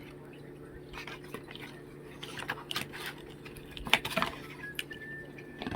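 Scattered light clicks and taps of a toy motorcycle's box and plastic packaging being handled as the bike is worked free of the plug holding it to the bottom of the box, over a faint steady hum.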